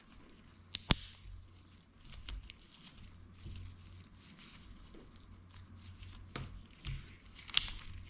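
Plastic parts of a Ford smart key fob clicking together as it is reassembled: a sharp double click about a second in and two more clicks near the end, with faint handling noise between.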